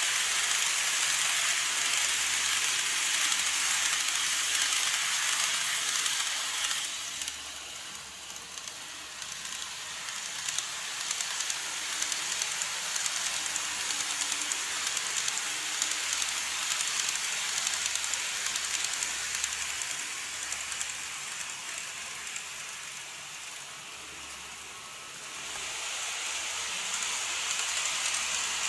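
N gauge model trains running on plastic viaduct track: a steady rolling hiss of wheels on rail with a faint motor hum. It is loud as a train passes close, drops after about seven seconds, and rises again near the end as a train nears.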